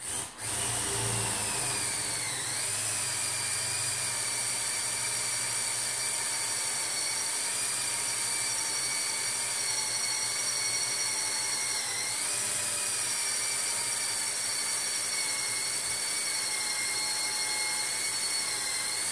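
Cordless drill motor whining steadily as a 21/64 bit cuts into an aluminum shock reservoir cap, its pitch sagging briefly twice, about two and a half seconds in and again about twelve seconds in, as the bit loads up. The drill sounds weak, which the user puts down to a battery running low.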